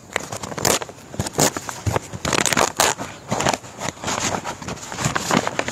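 A large paper envelope being torn open and handled by hand: irregular crackling, crinkling and ripping of paper.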